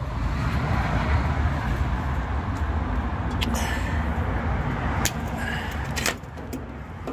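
Trailer EBS/ABS electrical cable connectors being handled and checked for bent pins, giving a few sharp clicks over a steady low rumble.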